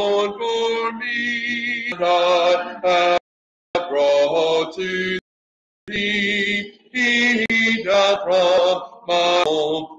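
A man singing a hymn unaccompanied, holding long notes phrase by phrase. The sound cuts out to silence twice for about half a second each time, a few seconds in.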